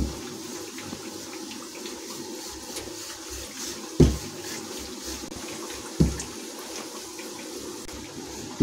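Steady sizzle of mathri frying in hot oil on a low flame, broken by four dull knocks, likely the wooden rolling pin bumping the counter as dough is rolled thin.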